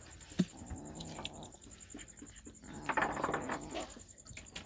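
Domestic cat meowing, with a short knock about half a second in.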